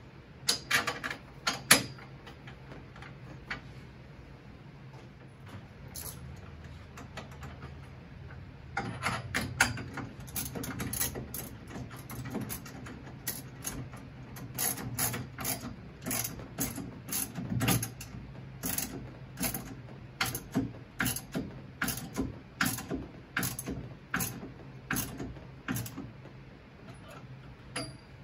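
Socket ratchet wrench being worked back and forth, its pawl clicking in quick runs about once a second as a roll bar base-plate bolt is snugged down, with a few metal clinks of tools at the start.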